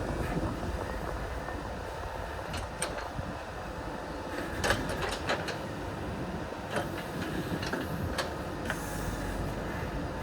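JCB 3DX backhoe loader's diesel engine running steadily at work, with scattered sharp clanks and knocks, the loudest a little under halfway through.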